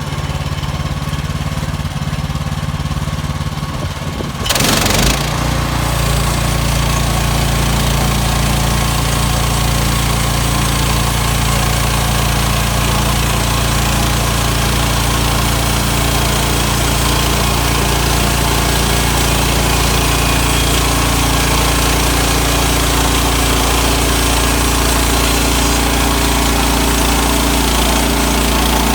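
A small engine running steadily. About four and a half seconds in there is a brief loud rush of noise, after which the engine note is stronger and steadier.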